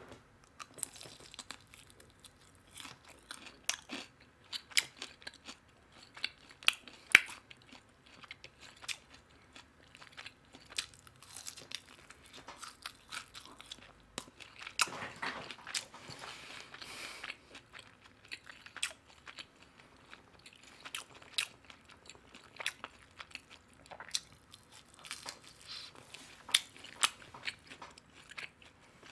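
A person eating crispy boneless soy-sauce fried chicken close to the microphone: repeated crunchy bites and chewing, with sharp crunches scattered throughout and a longer, denser spell of chewing about halfway through.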